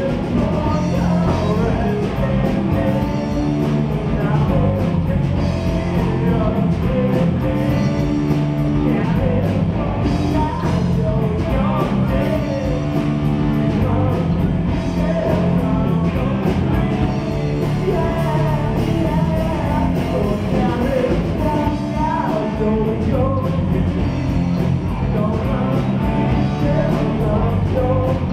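Live rock band playing: electric guitars and a drum kit with a singer's vocals over them, loud and continuous.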